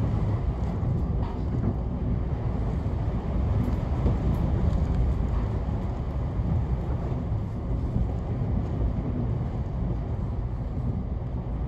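Steady low rumble of a 521-series electric train running, heard inside the passenger cabin: wheels and running gear on the rails.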